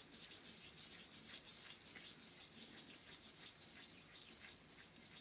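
Faint rubbing of fingertips working a wet homemade sugar scrub over the skin of the face, in many quick irregular strokes.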